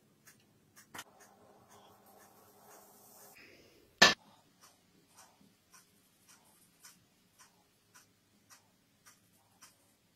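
Steady, regular ticking, about two clicks a second, with one loud sharp click about four seconds in.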